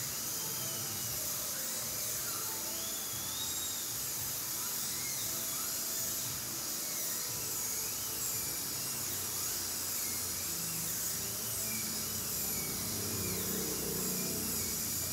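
Dental drill running steadily, its thin whine wavering up and down in pitch, during a root canal treatment.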